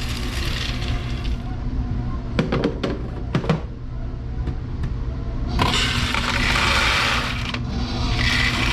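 Shelled corn pouring from a grain dryer's sample spout into a container, in three rushing bursts with a few sharp clicks between them, over the grain dryer's steady low hum.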